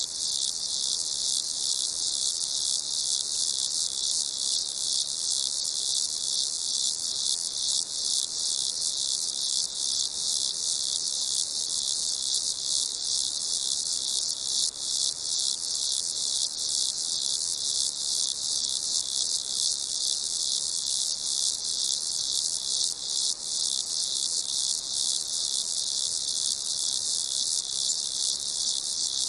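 Crickets chirping in a dense, continuous high-pitched chorus of rapid pulses, steady throughout.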